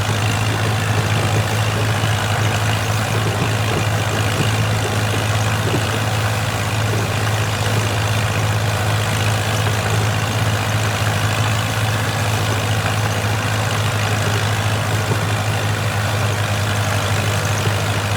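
Engine of vintage farm harvest machinery running steadily, with a constant low hum.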